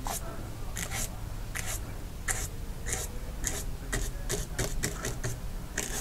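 A bristle paintbrush scraping across a canvas mounted on foam board in short, quick strokes, about two a second and somewhat irregular, as white paint is dabbed and flicked on for wave spray.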